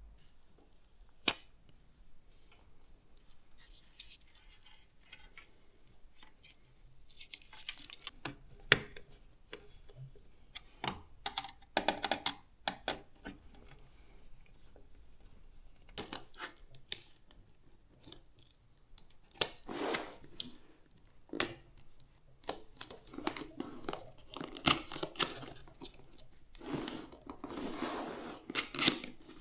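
Hands at work on a PC build: scattered sharp clicks and taps. In the second half, repeated tearing and crinkling sounds that grow denser near the end.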